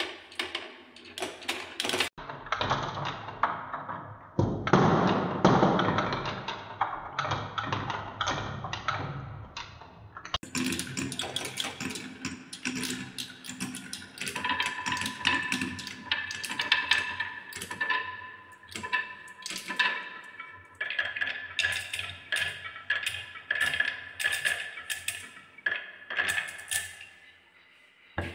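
Many glass marbles rolling and clattering down a wooden marble run, clicking against the wood and each other. From about halfway, a steady ringing hum joins the rattle while the marbles circle the plywood spiral bowls.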